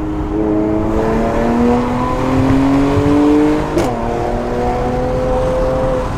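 Mercedes-AMG C43 engine heard from inside the cabin under acceleration, its pitch climbing steadily, then dropping sharply with a short click at an upshift about four seconds in before climbing again more slowly. The engine is not yet warmed up.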